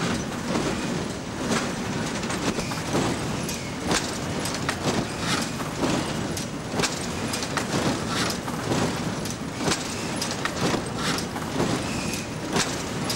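Machinery running with a steady clatter and a regular sharp knock about twice a second.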